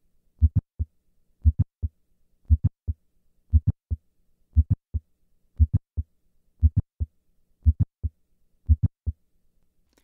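Heart sounds of mitral valve prolapse in the standing position, with no murmur: in each beat the first heart sound is followed closely by a mid-systolic click, then comes the second heart sound. The beats repeat about once a second. Standing brings the click early in systole, about 140 milliseconds after the first heart sound.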